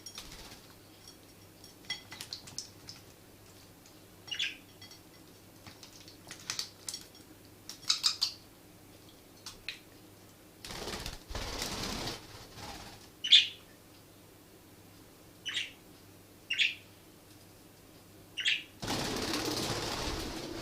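Budgies giving single short chirps every second or two, with light clicking and two longer bursts of wing flapping, the second lasting nearly two seconds, near the end.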